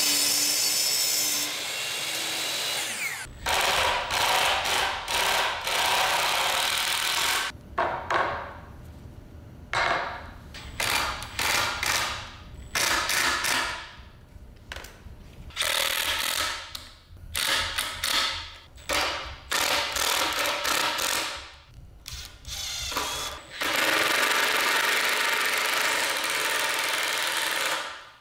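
A miter saw finishes a cut through a 2x4 and its blade winds down, falling in pitch. Then a Makita 18V cordless drill drives construction screws into 2x4s in many short stop-start runs and some longer ones, with pauses between.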